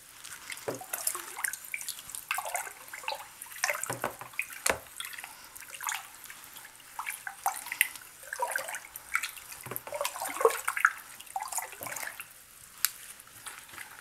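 Water in a plastic tub sloshing, trickling and dripping as a dye bath is stirred by hand and spoon. A few sharp clicks are heard, about a second in, near five seconds, near ten seconds and near thirteen seconds.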